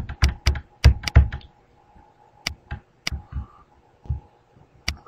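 Computer mouse clicking: about a dozen sharp clicks, each with a dull knock, at uneven intervals and more spread out after the first second and a half, over a faint steady hum.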